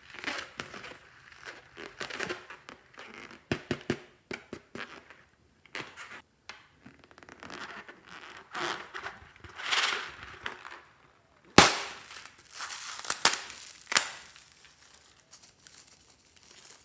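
Hands working balloons and slime: irregular crinkling, squishing and tearing noises, with two sharp snaps about two-thirds of the way through and near the end.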